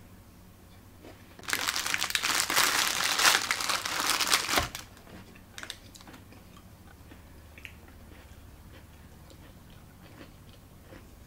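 Snack packaging crinkling as it is handled, loud and crackly for about three seconds starting a second and a half in, ending with a soft knock; a few faint clicks follow.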